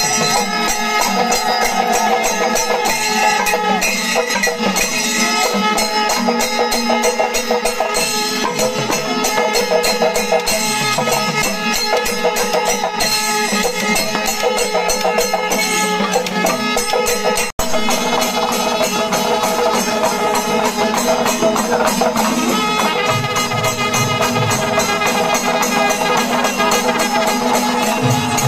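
Music with a steady pitched melody over fast jingling percussion, cutting out for an instant about two-thirds of the way through.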